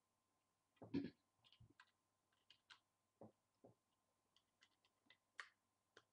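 Plastic Lego pieces being handled: scattered light clicks and taps, with a louder knock about a second in.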